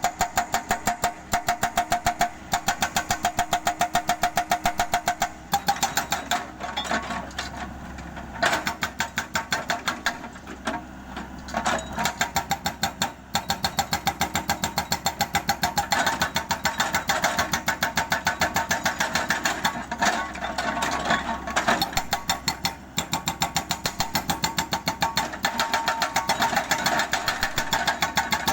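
Hydraulic breaker on a mini excavator hammering concrete at a rapid, even rate of many blows a second, over the engine running under load. It stops briefly several times and then resumes.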